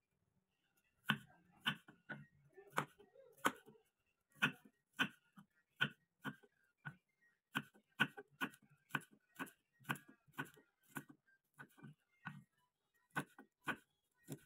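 Knife slicing garlic cloves on a wooden cutting board: a steady run of sharp knocks, a little under two a second, starting about a second in, as the blade strikes the board.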